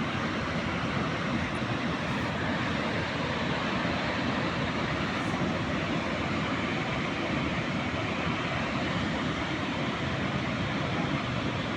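Steady, even rushing noise of an outdoor nature ambience, unchanging throughout, with no distinct calls or knocks.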